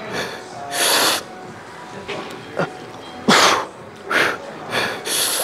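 A man breathing hard with four or five sharp, forceful exhales, the loudest about three seconds in: the hard breathing of effort during or between heavy sets.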